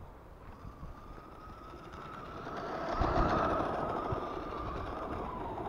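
RC car racing across snow, its motor whining in one steady tone that grows louder as the car comes close and sags in pitch near the end, with snow hissing under the tyres and a low thump about three seconds in.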